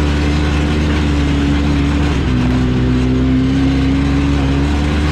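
ATV engine running steadily while climbing a mountain trail, its pitch dropping slightly about two seconds in.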